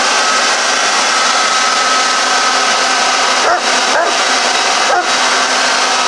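Electric hair dryer running steadily with a high motor whine and a rush of air, dipping briefly three times in the second half.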